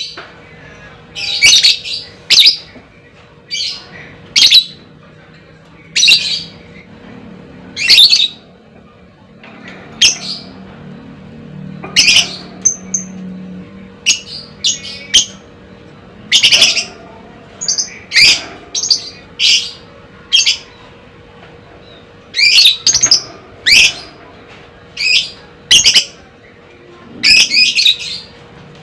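A lovebird giving loud, shrill, squawking calls, short sharp bursts that come in clusters every second or two.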